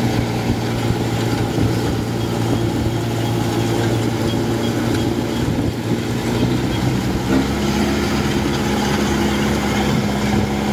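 Kubota DC-105X combine harvester's diesel engine running steadily with a loud exhaust as the machine drives through tall grass; its note shifts slightly about seven seconds in.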